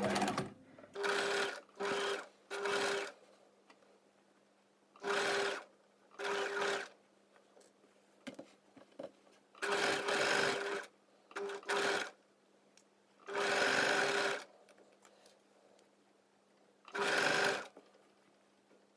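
Domestic electric sewing machine stitching a side seam in short spurts, starting and stopping about ten times, each run lasting from half a second to a second.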